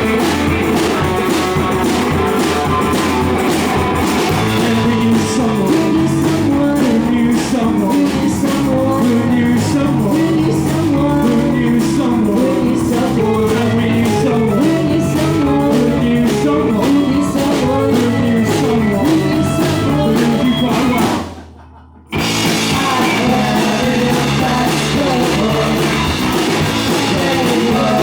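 Live rock band playing a song: electric guitar, bass, drum kit and singing. About three-quarters of the way through, the music drops away for about a second, then the full band comes straight back in.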